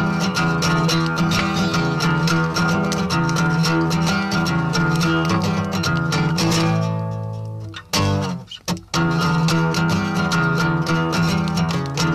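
Acoustic guitar strummed in a steady driving rhythm. A little past halfway the strumming stops and the last chord rings out and fades. After a short broken pause the strumming starts up again.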